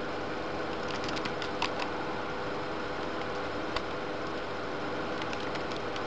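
Keys tapped on a netbook keyboard as a command is typed: a short run of clicks about a second in, a single one near the middle and a few more about five seconds in, over a steady low hum.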